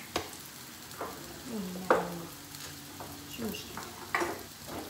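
Chopped eggplant with chermoula frying in oil in a pan, a steady sizzle. Several sharp clicks and knocks sound over it, the loudest about two seconds in.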